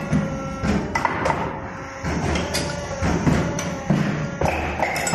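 Background music, with the sharp, irregularly spaced knocks and clunks of an automatic clamp-forming machine's cylinders and tooling slides as it cycles.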